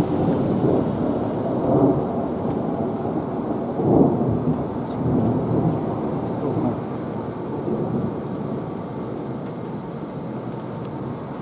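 Thunder rolling, with louder swells about two and four seconds in, then rumbling away over the last few seconds, over falling rain.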